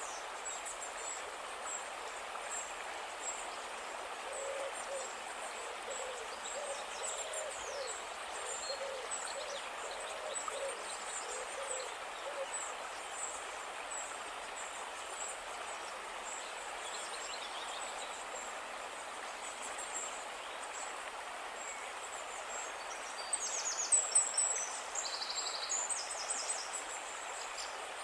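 Flowing river water rushing steadily, with a run of repeated low hooting calls in the first half and high bird chirps throughout, loudest as a cluster of chirps near the end.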